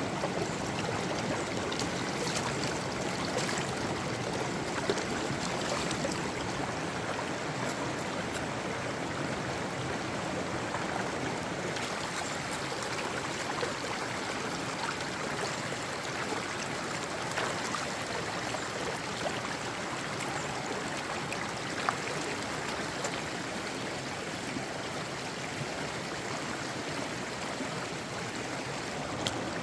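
Mountain stream flowing steadily, with a few brief light clicks or knocks now and then.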